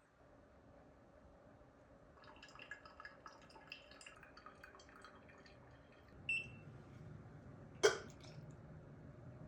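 Light taps and clicks of pour-over brewing gear being handled, then a short beep from a digital coffee scale about six seconds in, followed by a sharp knock, the loudest sound, nearly two seconds later.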